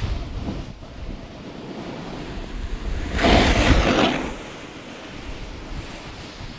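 Wind buffeting an action camera's microphone while snowboarding downhill. About three seconds in comes a loud hiss lasting about a second, the board's edge scraping across the snow through a turn.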